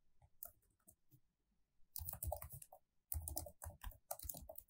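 Computer keyboard typing, faint: a single keystroke near the start, a pause of over a second, then two quick runs of keystrokes from about two seconds in.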